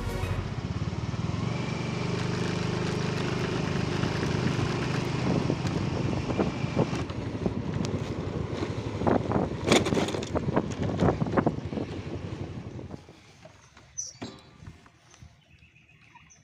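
Motor scooter engine running with a steady low hum under wind and road noise, with irregular louder surges; it falls away about thirteen seconds in, leaving only faint background and a few clicks.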